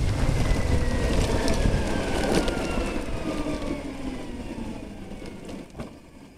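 Electric scooter's drive motor whining and falling steadily in pitch as the scooter slows almost to a stop, with wind and road rumble fading away; a sharp click near the end.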